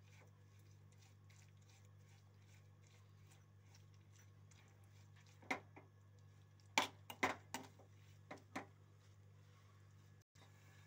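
Metal spoon stirring rose petals and sugar in a metal pan, with faint scraping and a handful of sharper clinks against the pan between about five and nine seconds in, over a low steady hum.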